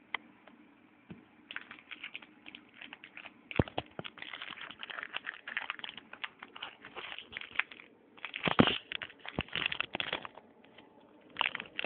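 Foil booster pack wrapper crinkling as it is handled and opened, a quick run of crackles that is loudest about two-thirds of the way through.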